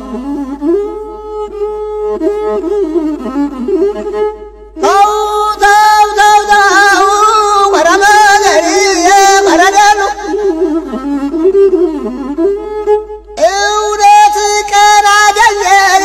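Ethiopian folk music, instrumental: a single melody line sliding between notes, soft at first and louder from about five seconds in.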